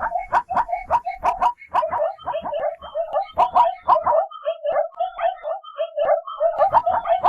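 Zebra calling with its barking cry: a fast, unbroken run of short, high yelping barks, several a second, with wheezy breaths between them.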